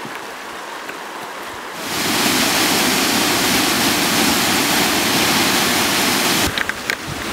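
Running water: a shallow creek's steady flow, then, about two seconds in, the louder, dense rush of a small waterfall pouring over granite into a pool. Near the end it drops back to a quieter rush with a few light clicks.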